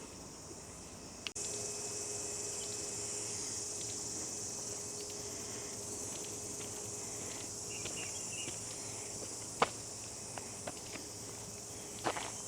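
Insects chirring in a steady high-pitched drone that starts suddenly about a second and a half in, with a few footsteps near the end.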